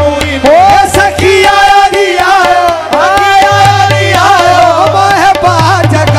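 Qawwali music: harmonium and tabla playing while a male voice sings long, sliding notes, with the tabla's beat growing stronger in the second half.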